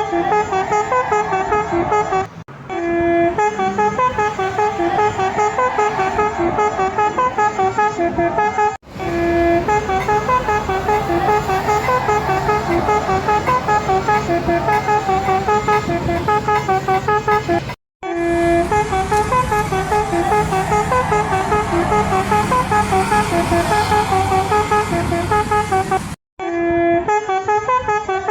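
Tour bus 'telolet basuri' musical horns playing fast, tune-like runs of short honking notes, each run opening on a longer held note. The sound breaks off abruptly about four times as separate horn recordings follow one another, with a bus engine running underneath in places.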